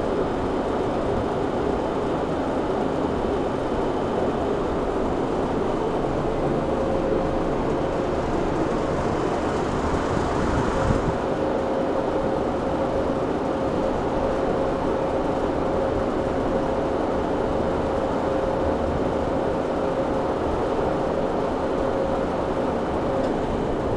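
Steady mechanical noise of fans and refrigeration equipment running, with a steady hum tone coming in about ten seconds in and holding.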